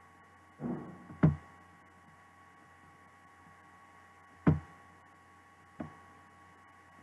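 Three sharp knocks, each with a low thud: a loud one about a second in, a second loud one past the middle, and a softer one soon after, with a brief rustle just before the first. A faint steady electrical hum runs beneath them.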